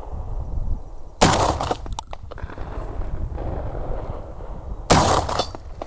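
Two shots from a 12-gauge shotgun firing buckshot, about three and a half seconds apart, each blast trailing off over about half a second.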